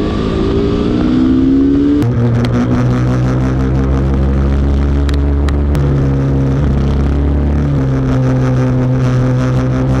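Motorcycle engine running under way. Its pitch rises as it accelerates over the first couple of seconds, then holds steady, with sudden jumps to a different pitch a few times.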